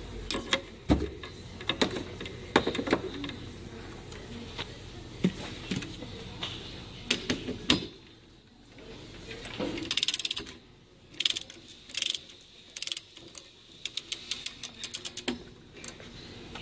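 Scattered clicks and knocks of tools being handled, then, in the second half, a ratchet wrench clicking in quick runs as it is swung to tighten the nipple cup lock nut on a Ford 6.0L high-pressure oil rail.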